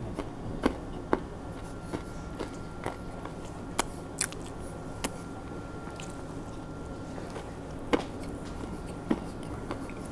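A person biting and chewing food close to the microphone, with irregular sharp mouth clicks and smacks.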